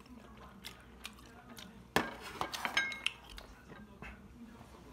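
Ceramic tableware set down on a table with a sharp knock about two seconds in, followed by a quick run of clinks of utensils against the dishes, some ringing briefly.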